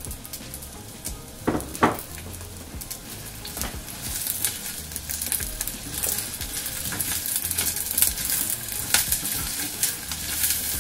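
Sliced red onions sizzling in hot olive oil in a small stainless steel saucepan, stirred with a silicone spatula that clicks and scrapes against the pan. Two sharp knocks come just before two seconds in, and the sizzle grows louder from about four seconds in.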